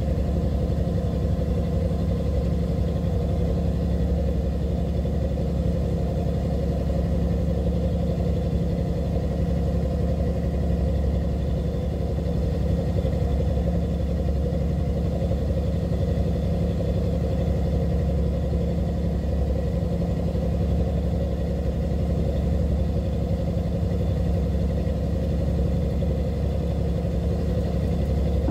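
A fishing boat's engine running steadily, giving an even, low drone that doesn't change.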